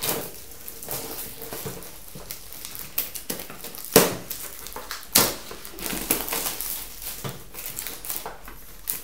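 Clear plastic bag crinkling and rustling as a cardboard box is worked out of it by hand, in irregular crackles with a few sharper cracks about four and five seconds in.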